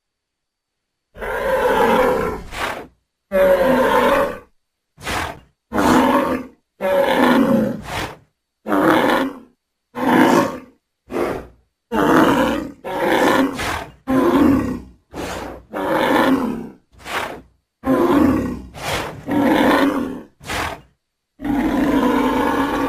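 Series of about twenty short dinosaur roars and grunts made as Centrosaurus sounds, each two seconds or less, cut apart by silent gaps.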